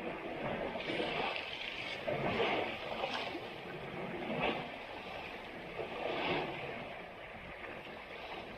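Water and mud splashing and sloshing in irregular surges, as elephants wallow in a muddy river.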